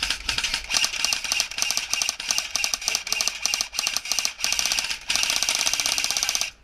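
Airsoft gun firing strings of rapid shots, ending in one continuous full-auto burst of about a second and a half that cuts off suddenly.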